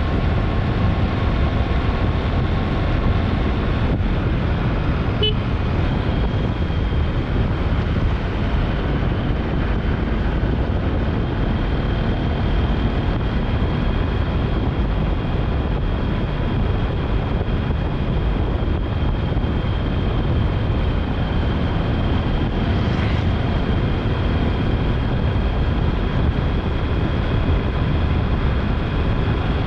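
Steady vehicle and road noise: a continuous low rumble with a faint engine hum and no breaks.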